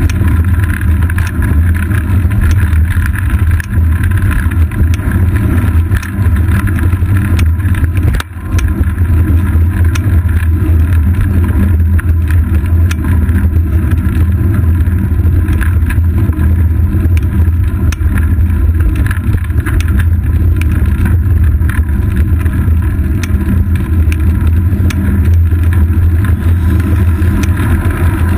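Steady low rumble of wind and road vibration picked up by a GoPro Hero 2 mounted on the seat post of a moving road bicycle, with small ticks and rattles throughout and a brief drop about eight seconds in.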